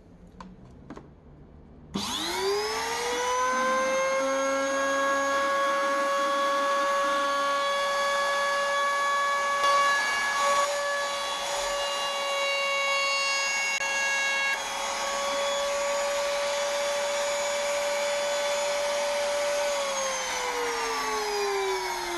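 A small electric router starts about two seconds in, its whine rising to a steady high pitch while an acrylic panel is fed through it to cut a groove. Near the end it is switched off and its pitch falls as the bit winds down.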